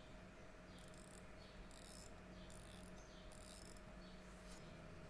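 Faint fine clicking of a 1944 Omega 30.10 RA watch movement's click ratcheting over the ratchet wheel as the mainspring is wound by hand, in about five short bursts.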